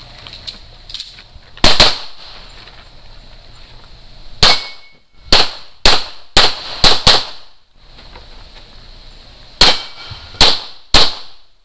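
Pistol shots in a practical shooting stage: one shot about two seconds in, then a quick string of six, then three more near the end. Each is a sharp crack with a short echo.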